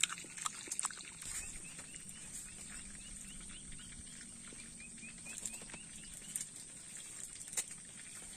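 Outdoor grassland ambience: a quick run of short rising chirps, about five a second, starts about a second in and lasts some two seconds, over a steady high-pitched drone. A few light clicks come near the start.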